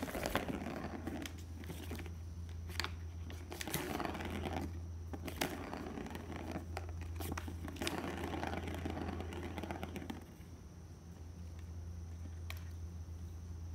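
Maine Coon kitten playing: bursts of crinkling and scraping with scattered sharp clicks, dying down about ten seconds in. A low steady hum runs underneath.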